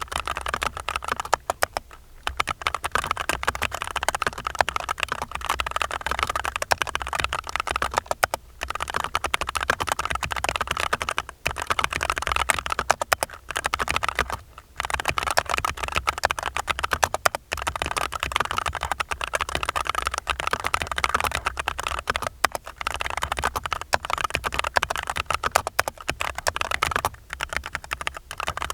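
Continuous fast typing on an Archon RE:AL FX2 mechanical keyboard with tactile FEKER Holy Panda V2 switches, lubed springs and stabilizers and noise-absorbing foam inside. It is a steady stream of keystroke clacks, broken by short pauses every few seconds.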